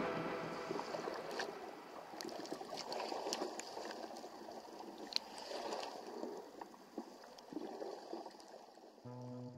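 Water rushing and splashing along the hull of a sailing yacht moving fast under sail, with scattered crackles of spray. Music comes in near the end.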